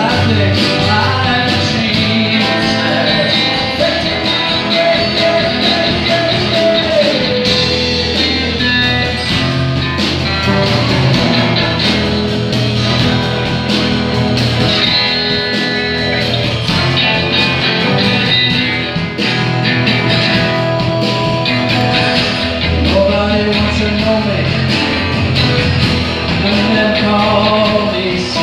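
A rock band playing live: drum kit, electric bass and acoustic and electric guitars in a steady rock-and-roll groove, with long held melody notes that bend in pitch.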